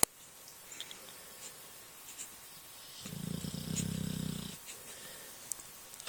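American bulldog snoring: one low snore lasting about a second and a half, about three seconds in, with quiet breathing before and after. A sharp click at the very start.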